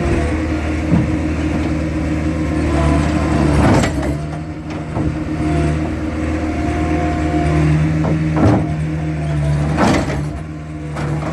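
Skid steer engine running steadily under load while its bucket strikes a concrete block basement wall, giving about four heavy knocks spread over the stretch.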